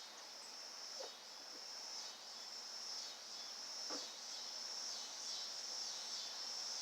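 Steady high-pitched chorus of insects, with two faint knocks about a second in and about four seconds in.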